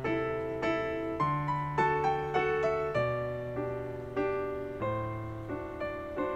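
Background piano music: an unhurried melody of struck notes, one about every half second, each fading out over held low bass notes.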